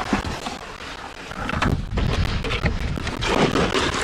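Gloved hands scraping and scooping through wet sand, gravel and mud in a bait-digging hole, with gritty scrapes and small clicks of stones. Wind buffets the microphone, giving a low rumble underneath.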